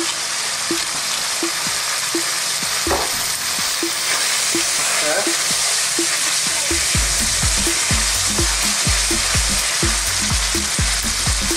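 Goat meat sizzling in oil in a wok while a wooden spatula stirs it, with light ticks about twice a second. About seven seconds in, heavy low knocks join at a similar pace.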